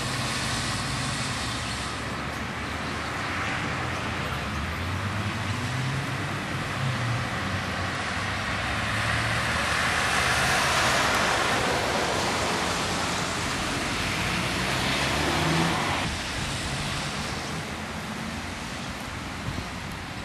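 Car on the move: a steady hiss of road and tyre noise under a V6 petrol engine whose drone rises and falls in pitch as it speeds up and eases off.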